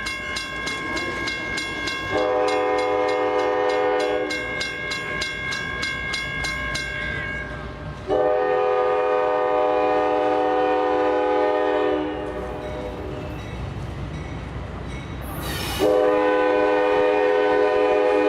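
A CSX freight locomotive's air horn sounding three long chord blasts, the second the longest. A bell rings rapidly through the first two blasts and stops about seven seconds in, and a short hiss comes just before the last blast.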